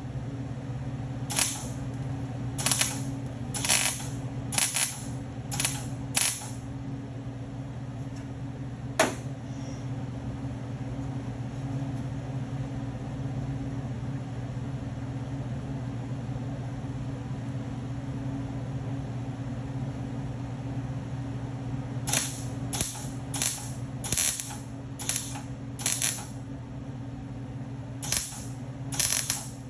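Short bursts of welding crackle, each about half a second, as a welder lays tack welds joining new sheet metal to a truck cab's inner cowl. The bursts come in two groups, about six early and a quicker run near the end, with a single sharp click in between and a steady low hum underneath.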